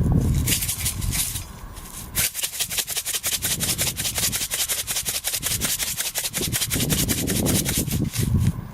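Coarse sea salt shaken onto a skillet: a fast, even rattle of grains that starts about two seconds in and runs for about six seconds, after a brief rustle of handling.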